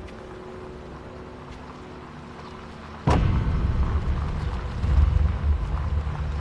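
Quiet background for about three seconds, then a sudden loud deep boom that carries on as a heavy low rumble.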